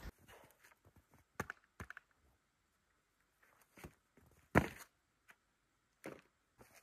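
A few scattered wooden knocks and clunks as sawn slab offcuts are picked up from the snow. The loudest knock comes about halfway through.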